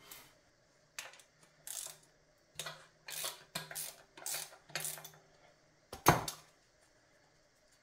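Short metallic clinks and rattles of loosened bolts being turned out by hand and handled on a cast transmission case, about seven separate sounds, the loudest near six seconds in.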